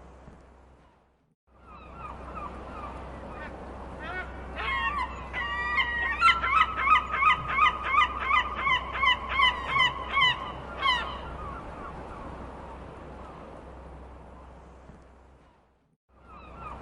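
Seagulls calling over a steady background hiss: a few scattered calls, then a loud rapid run of about fourteen calls, some three a second, in the middle. The whole sound fades out to silence and back in twice, shortly after the start and near the end.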